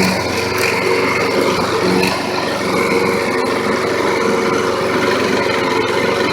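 Toro walk-behind lawn mower's four-stroke engine running steadily just after starting. It is burning off oil left from being overfilled and tipped on its side.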